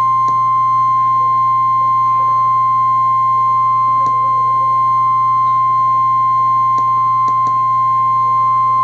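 NOAA Weather Radio's 1050 Hz warning alarm tone: one loud, steady beep held without a break, the signal that a warning, here a tornado warning, is about to be read. Under it a low steady hum from the radio and a few faint clicks.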